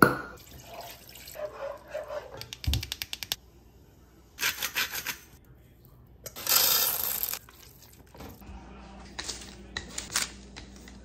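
A run of kitchen handling sounds: a sharp pop at the start as a cork comes out of a wine bottle, then quick clicks and clatter, a loud scraping rush about six seconds in as shredded chicken is tipped into a metal pot, and light knocks near the end.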